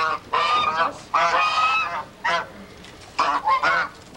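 Two geese honking back and forth, about six short honks with brief pauses between them.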